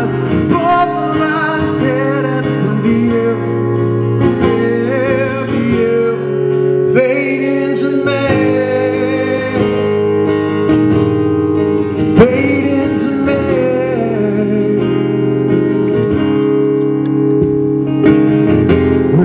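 Live acoustic guitar playing a song's instrumental passage, with a voice singing over it at times.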